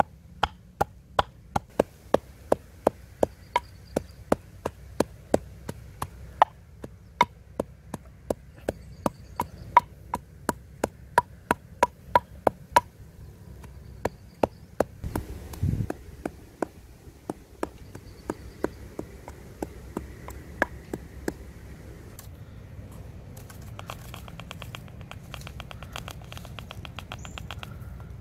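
Wooden pestle pounding garlic and spice paste in a clay mortar: sharp knocks about two to three a second, slowing and stopping a few seconds before the end.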